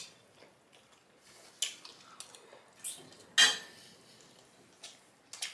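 Close-up eating sounds: scattered short clicks and scrapes of cutlery and fingers on a plate along with wet mouth sounds of chewing fish, the loudest a brief burst about three and a half seconds in.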